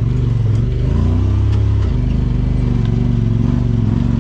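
2022 Honda Pioneer 1000-5 side-by-side's parallel-twin engine running through an HMF aftermarket exhaust while driving a dirt trail, heard from on board. The engine note shifts briefly as the throttle changes between about one and two seconds in.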